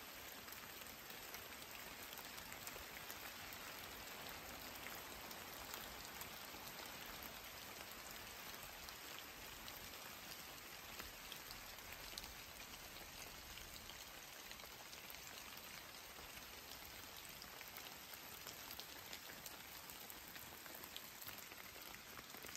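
Steady rain falling in a redwood forest, a faint even hiss dotted with many small drop ticks.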